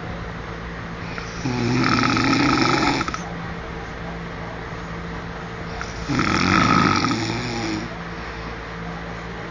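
A man snoring: two long snores, each close to two seconds, about four and a half seconds apart, over a steady low hum.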